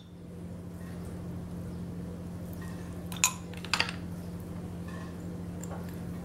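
Snail shells clicking against each other and the dish as cooked snails are picked out by hand: a couple of sharp clicks a little past the middle, over a steady low hum.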